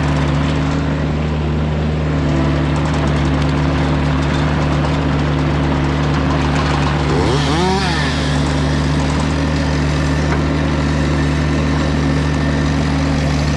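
Mini skid steer loader's engine running steadily at constant speed. About halfway through, a brief squeal rises and falls over it.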